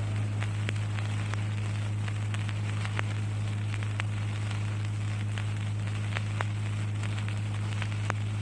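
Recording background noise between verses: a steady low hum with even hiss and scattered faint clicks and crackles.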